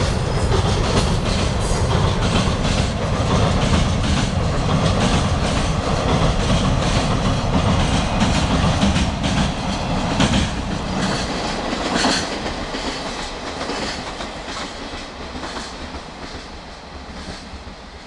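Electric-hauled container freight train rolling over a steel girder bridge: the wagons' wheels clatter over the rail joints in a steady clickety-clack with a heavy rumble. The train draws away from about eleven seconds in and the noise fades.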